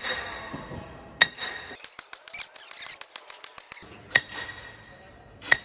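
Sledgehammer striking a tent peg with a ringing metallic clang, three blows spaced a few seconds apart. Between the first two blows comes a quick run of about a dozen sharp clicks.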